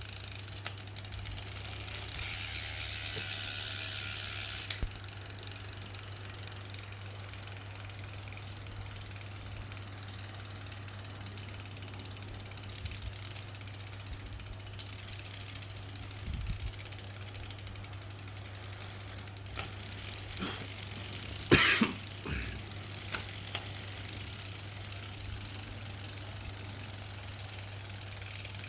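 Brompton 6-speed folding bike drivetrain clicking rapidly and steadily as it is pedalled, a clicking that others have called normal. A stretch of louder hiss comes a few seconds in, and one sharp knock comes about two-thirds of the way through.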